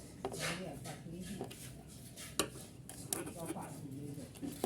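Sharp metallic clicks and clinks of a screwdriver on small screws and nuts, which are being tightened onto the copper terminal strips in a solar panel's junction box. There are about five clicks, spaced irregularly, and the strongest comes a little past the middle.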